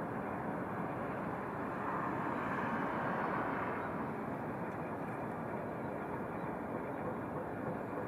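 A train moving far off across a rail depot: a steady low rumble that swells a little between about two and four seconds in.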